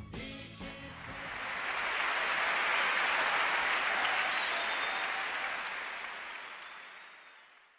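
An audience applauding: the clapping swells up over about two seconds, holds, and fades out near the end. The orchestra's last notes die away in the first second.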